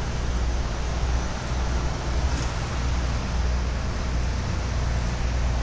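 Steady road traffic on a city street: cars passing, a continuous low rumble with hiss.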